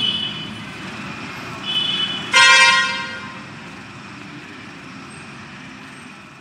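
Vehicle horns over a steady rumble of traffic: two short high beeps, then a louder horn blast lasting about half a second, a little over two seconds in.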